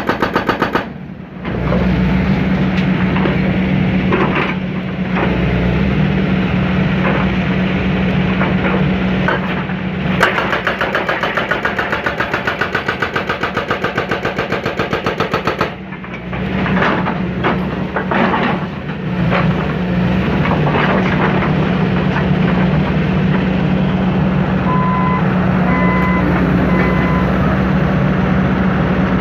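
John Deere 160C excavator's diesel engine working under load with a steady pitched drone, easing off briefly twice, while scattered knocks and crunches come from the bucket breaking up the old silo's base. Three short beeps sound near the end.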